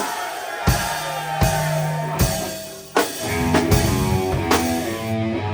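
Rock band playing live: heavy drum-kit hits with cymbals land about every three quarters of a second under held electric guitar chords, then the guitar and bass move into a quicker run of notes about halfway through.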